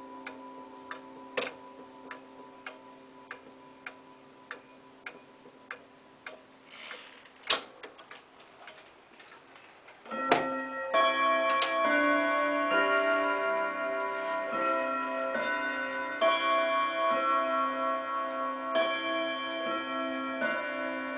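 Mauthe German chiming wall clock ticking steadily, with one louder click about seven and a half seconds in. About ten seconds in the chime train lets go and the clock plays its chime melody, note after ringing note, set off by the minute hand having been pushed round to the hour.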